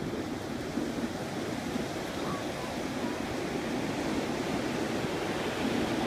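Ocean surf breaking and washing up a sandy beach: a steady rushing noise.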